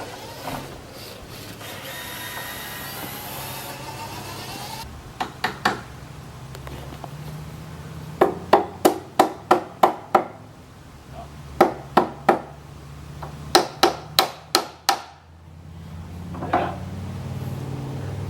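Hammer driving nails into wood, in quick runs of sharp blows: three, then about seven in a row, then three, then about six. A stretch of steadier rasping noise comes before the first blows.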